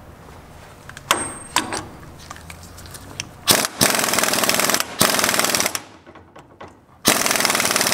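Ingersoll Rand impact wrench hammering on the axle's pinion flange nut in two bursts, the first about two seconds long and the second starting near the end, after a couple of clicks about a second in. The nut is being run up until it bottoms out and the bearing play is gone.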